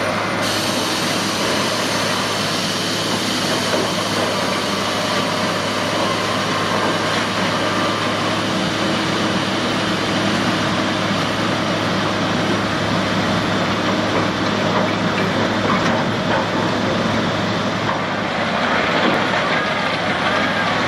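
Diesel engine of a crawler-mounted bored-pile drilling rig running steadily.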